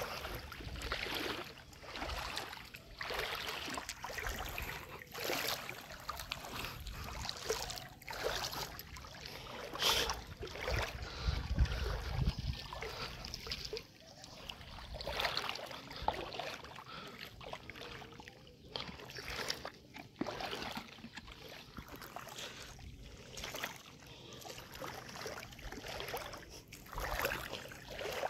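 Footsteps wading through shallow water, irregular sloshing splashes about every second or two. A low rumble joins in for a few seconds about ten seconds in.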